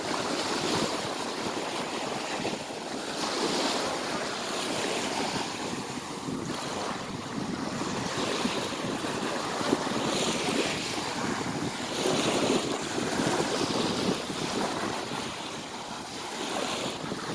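Small sea waves washing up and breaking on a pebble shore, swelling and falling back every few seconds, with wind buffeting the microphone.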